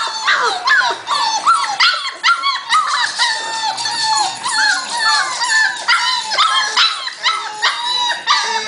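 A litter of young whippet puppies whining and yelping together without pause, many short, high-pitched, overlapping cries: the puppies are unhappy at being shut in their cage.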